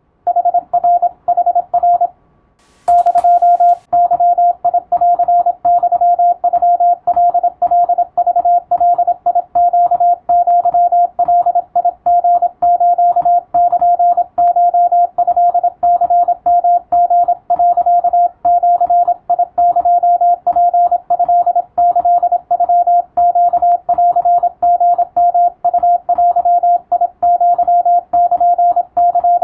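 Morse code practice tone, a single steady pitch keyed on and off in dots and dashes, sending Japanese Wabun code as a practice radiotelegram. It starts a moment in, breaks off briefly about two seconds in, and resumes with a short click.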